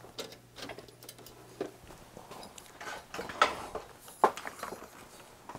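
Irregular clicks and rattles of a power cord and its plug being handled and pushed into a power strip, with two sharper knocks in the second half.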